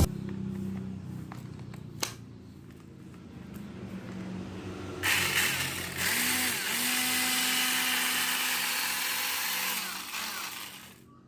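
Homemade cordless electric chainsaw, driven by a modified motorcycle starter motor through a grinder chainsaw adapter, running with a steady hum. About five seconds in it starts a louder, noisy cutting sound, which stops shortly before the end as the motor winds down. The starter motor turns too slowly for the saw to cut well.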